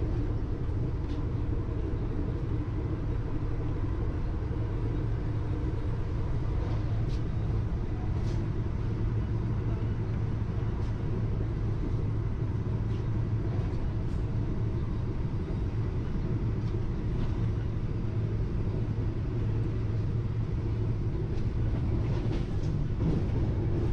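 Steady low rumble inside a carriage of the Vande Bharat Express (Train 18), an electric multiple-unit train, as it runs along the track, with a few faint ticks.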